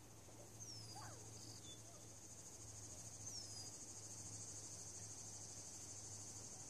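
Evening insect chorus, crickets chirring in a steady high pulsing buzz, with three faint short falling whistles over it.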